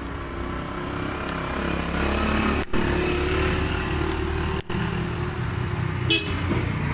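A motor engine running steadily in the background, a low even hum, briefly cutting out twice. A short sharp click near the end.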